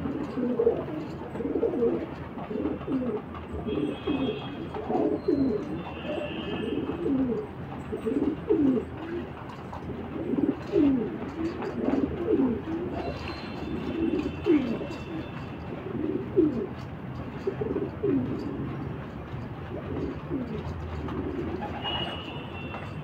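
Domestic pigeons cooing, a steady run of short, low calls from several birds overlapping one another.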